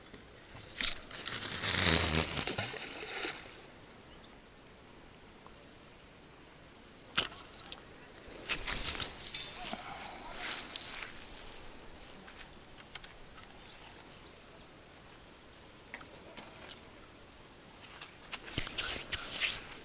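A bottom-fishing rod being cast: a whoosh of the swing about two seconds in, then bursts of clicking and rattling from handling the rod and reel.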